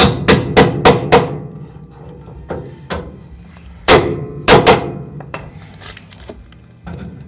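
Hammer blows on the car-body sheet metal of a rocker panel, each with a short ring, as the spot-welded panel is knocked loose. A quick run of about five blows, then a pause, then three more about four seconds in.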